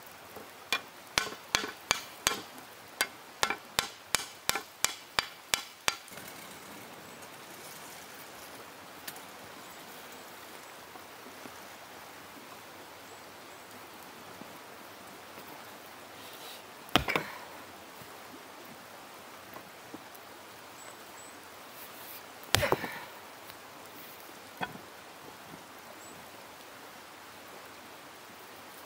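A stone hammer striking hot iron on a stone anvil: a quick run of about fifteen sharp blows, roughly three a second, then two single louder knocks later on over a steady low hiss.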